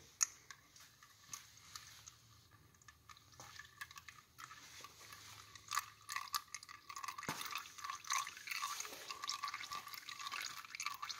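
Thin stream of water-contaminated engine oil from a Mercruiser 140 trickling and dripping into a drain pan full of oil. It is sparse, faint ticks at first and becomes a denser, louder trickle from about halfway through.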